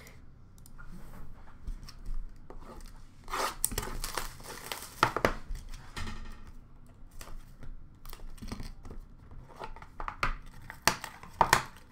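Plastic shrink-wrap being torn off a sealed trading-card box and crumpled: irregular crinkling and tearing rustles, with the sharpest rips about four to five seconds in and again near the end.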